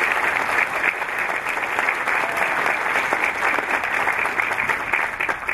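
Audience applauding: many hands clapping in a dense, steady patter that dies away right at the end.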